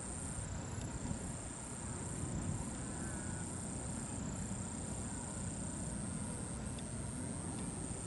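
Insects trilling steadily at a high pitch, with low wind rumble on the microphone.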